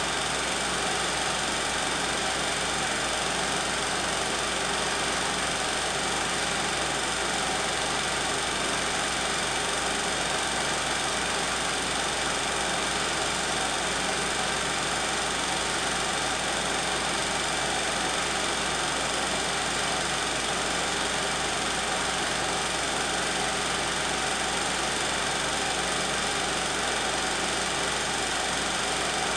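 16mm film projector running: a steady mechanical whir and clatter that holds unchanged throughout.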